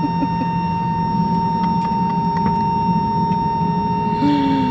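Airliner cabin noise: the steady drone of the engines and air system inside the cabin, with a constant hum. A person's voice sounds briefly near the end.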